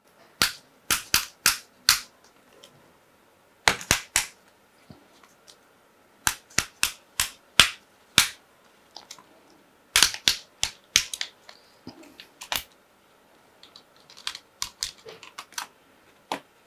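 Snap clips of an Oppo phone's midframe clicking loose one after another as the frame is prised off by hand: sharp clicks, singly and in quick runs of three or four, with a dense run about ten seconds in.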